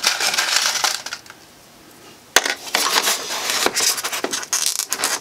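Styrofoam blocks rubbing, squeaking and crunching against each other as they are pressed and pinned into place. A scratchy rush for about a second, a short pause, then a sharp click about two and a half seconds in and more scraping.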